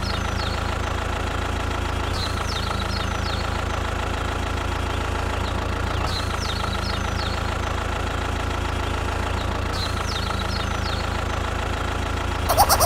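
An engine idling steadily with an even, low knocking beat.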